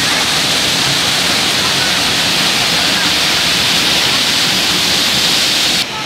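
Waterfall crashing down over rock, heard close up: a loud, steady rush of falling water. It drops away suddenly just before the end.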